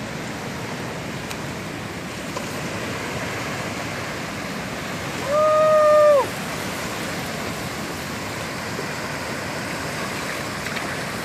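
Shallow ocean surf washing steadily up the beach. About halfway through, a single held tone lasting about a second sounds over it, dipping in pitch as it ends.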